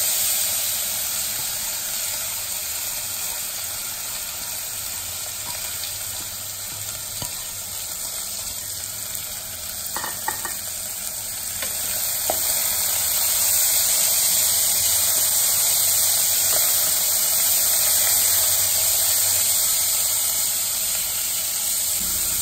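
Soaked chana dal sizzling in hot tempering oil in a pressure cooker while a wooden spatula stirs it. The steady sizzle swells again about halfway through, with a few light clicks around the middle.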